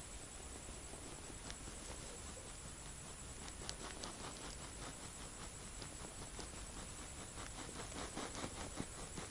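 Faint scattered ticks and light rustling from a hand jigging a small winter ice-fishing rod, coming more often toward the end, over a faint steady hiss.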